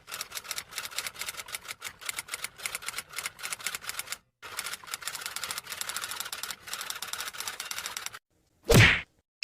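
Rapid, dense clicking, many sharp clicks a second like keys being struck, with a brief pause a little past four seconds; near the end, after the clicking stops, comes one short, much louder sound.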